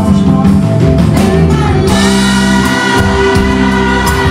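Live band playing a slow pop ballad, with male singing over electric guitar and keyboard; about halfway through, a long note is held steady.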